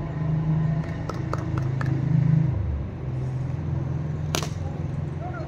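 A cricket ball struck once by a bat, a single sharp crack a little over four seconds in, over a steady low hum.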